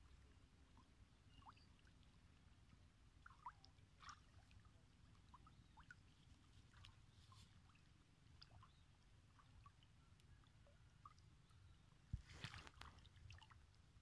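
Near silence: a faint low rumble with scattered faint ticks and short chirps, and a brief cluster of louder ticks near the end.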